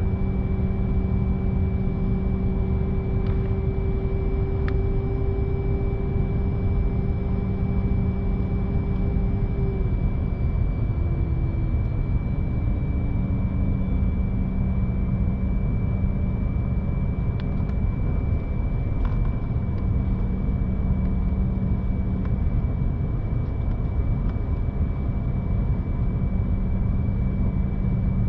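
Steady rumble inside an airliner cabin, with a constant high whine and a lower hum that slides down in pitch and fades about ten seconds in.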